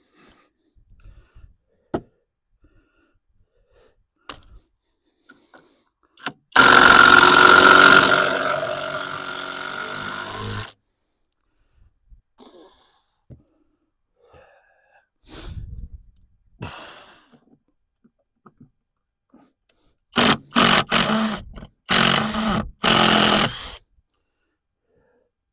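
Cordless power drill driving big wood screws into framing lumber. One run of about four seconds, loudest at the start and then steadier, and several short trigger bursts near the end.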